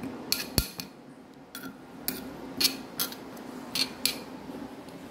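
Spoon knocking and scraping against a stone mortar while a wet sambal is mixed: about eight sharp clinks at uneven intervals, the loudest about half a second in. A low steady hum runs underneath.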